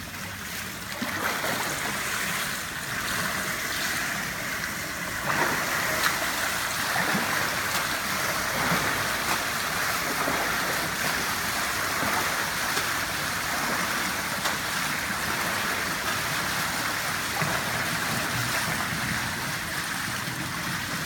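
Water churning and splashing as a swimmer with short fins does a dolphin kick through a pool, a steady wash that grows louder about five seconds in.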